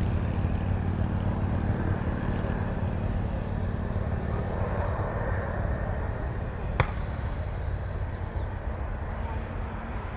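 Boeing 737-800's CFM56-7B turbofan engines at takeoff thrust, a steady jet noise heaviest in the low end, slowly fading as the airliner lifts off and climbs away. A single sharp click about seven seconds in.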